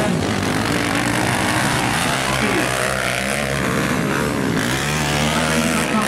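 Dirt bike engines revving hard as they race on a dirt track, their pitch rising and falling, with one engine holding a steady note near the end.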